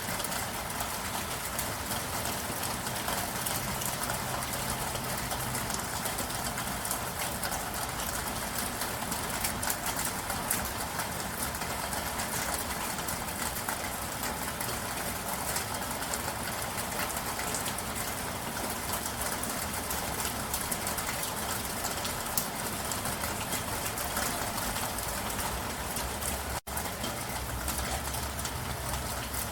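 Steady rain falling: a dense, even hiss of drops with fine individual taps, and a faint low hum at times. The sound cuts out for a split second shortly before the end.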